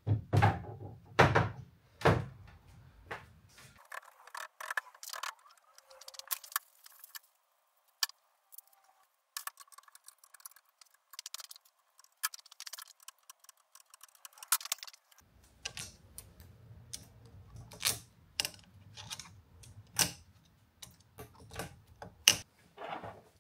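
Metal parts of a Onefinity Woodworker CNC knocking and clicking as it is assembled: the gantry rails set down onto the end plates and bolts turned with a hex key. Irregular knocks and clicks, the loudest in the first couple of seconds.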